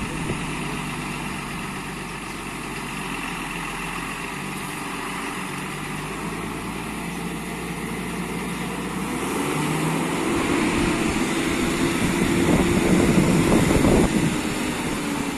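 Diesel engine of a heavy truck-mounted borewell drilling rig running as the truck drives and manoeuvres into position. The engine grows louder over the second half and falls off again near the end.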